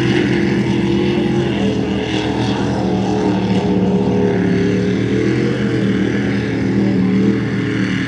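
Mud bog truck's engine held at high revs as it churns through a mud pit, its pitch wavering slightly.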